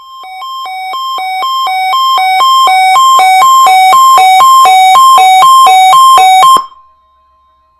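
Weather radio receiver's alert alarm: a loud, electronic two-tone beeping that alternates high and low about twice a second. It grows louder over the first few seconds, as it is set off by the NOAA Weather Radio weekly test. It cuts off suddenly near the end, leaving a faint steady tone.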